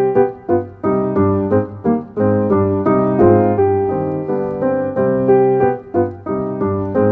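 Piano music: a continuous run of struck notes and chords.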